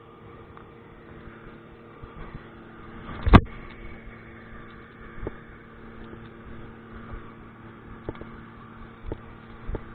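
Diesel farm machinery engine running steadily at constant speed. A sharp knock comes about a third of the way in, and lighter knocks follow in the second half.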